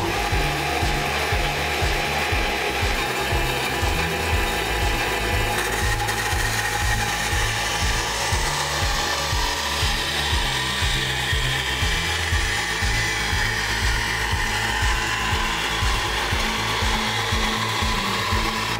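Homemade vertical bandsaw, driven by a salvaged powerchair motor, running steadily while its blade cuts through a wooden board.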